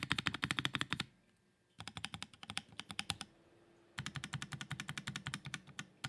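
Typing on a Savage65 mechanical keyboard with lubed Cream-paca linear switches (Cream stems in Alpaca housings, 65 g springs), an FR4 plate and GMK Wavez keycaps. Three fast runs of keystrokes, broken by two short pauses about a second in and about three seconds in.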